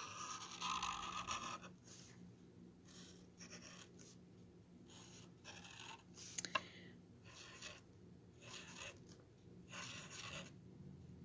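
Sharpie marker drawing on a wooden spoon: a run of short scratchy strokes with pauses between them, and one sharp tick about six and a half seconds in.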